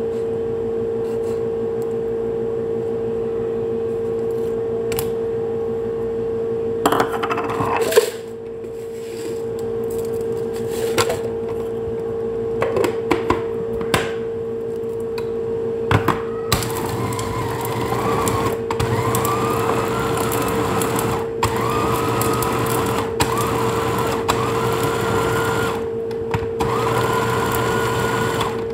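A small press-top electric food chopper is pulsed in about six short runs over the second half, its motor whine rising in pitch during each run as it minces tomato, parsley and chili. Before that come scattered knocks and clicks of a knife on a board and the jar being handled, over a steady hum that runs throughout.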